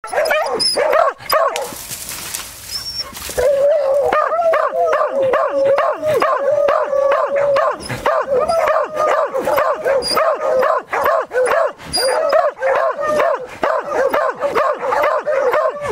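Beagles and beagle-harriers baying almost without a break, several voices overlapping, as hounds do when holding a wild boar at bay in cover.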